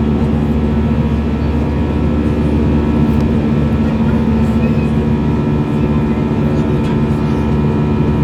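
Airbus A320 in flight, heard inside the cabin: a steady engine drone with several held tones over a constant rush of airflow noise.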